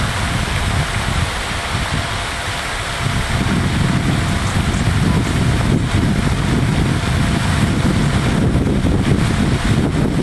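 Wind buffeting the microphone: a loud, gusting low rumble over a steady hiss.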